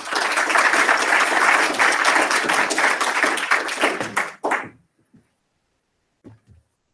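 Audience applauding, the clapping dying away after about four and a half seconds, followed by a few faint knocks.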